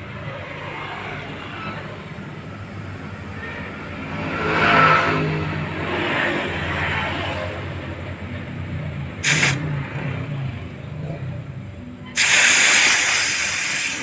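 Pressurised LPG gas rushing out of a refrigerator's refrigerant pipe as the clogged evaporator is flushed to blow out trapped oil: a short hiss about nine seconds in, then a loud, sustained hiss near the end. A low steady hum runs underneath.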